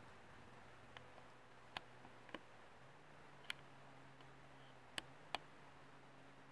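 Near silence with a faint low hum and about six short, sharp clicks at irregular intervals.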